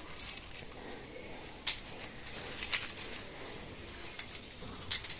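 A few faint, sharp snaps and crunches of biscuits being broken and eaten, over a quiet outdoor background.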